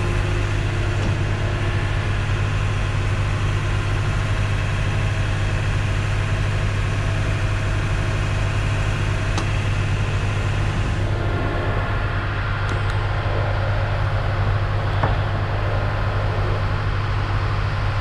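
Truck engine idling steadily, a constant low drone.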